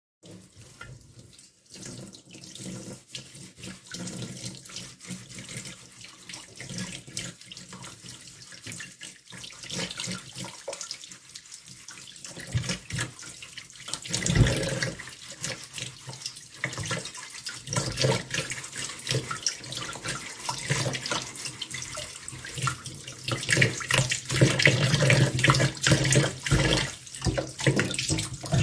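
Tap water running and splashing into a stainless steel colander while a cucumber is washed and scrubbed under the stream, getting louder over the last few seconds.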